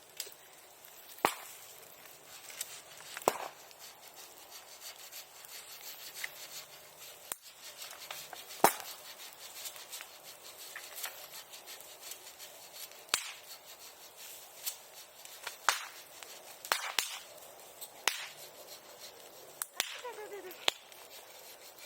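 Bonfire crackling: sharp, irregular cracks and pops from the burning wood over a low steady hiss, with a short falling whistle near the end.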